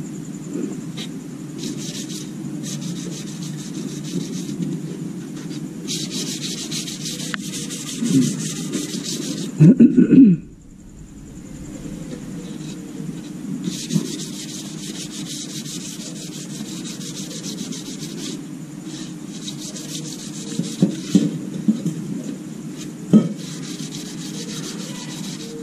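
Sandpaper on a hand sanding pad rubbing back and forth over a hard plastic panel, in stretches of steady strokes. There is a short, loud knock of handling just before the middle, and a few light clicks near the end.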